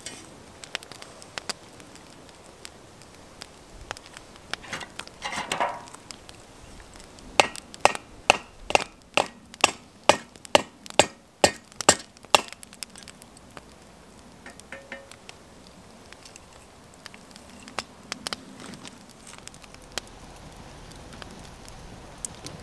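A run of about a dozen sharp knocks, roughly two a second, as something is struck by hand, over the light crackle of a small wood campfire.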